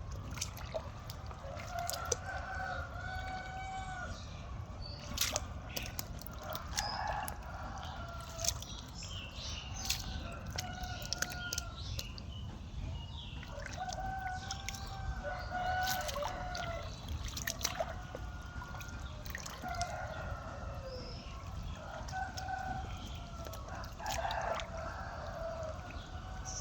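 Domestic chickens calling again and again, roosters crowing among them, over a steady low rumble with scattered sharp clicks.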